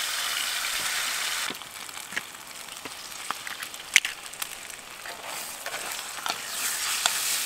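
Food sizzling in a black skillet over a wood campfire. The hiss is loud for about a second and a half, then drops to a quieter sizzle scattered with sharp pops and crackles.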